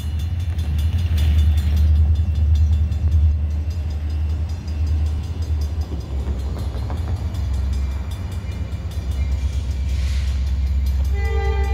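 Steady low rumble of approaching EMD SD40-2 diesel locomotives. About a second before the end, the lead locomotive's air horn starts to blow a chord of several steady notes.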